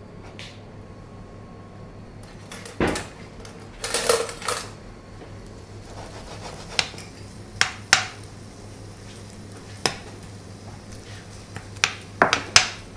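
A metal spoon clinking and scraping against a non-stick frying pan as sliced red onions are stirred in oil, in irregular knocks with a quick run of them near the end.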